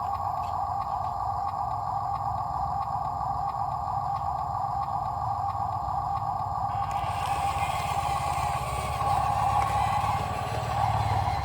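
Truck engine running steadily: a low rumble under a steady drone, with faint clicking in the first half. About seven seconds in, a hiss comes up over it.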